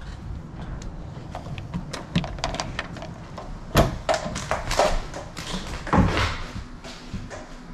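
Irregular taps and clicks, with a few louder knocks, as of hard objects being handled.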